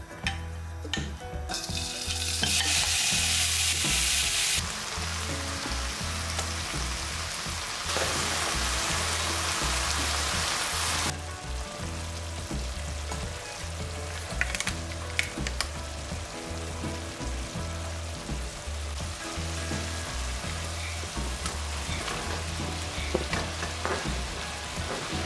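Beef and onions sizzling as they fry in oil in a nonstick pan; the sizzle jumps louder and softer a few times. Near the end there are a few soft knocks as chopped mushrooms are tipped into the pan.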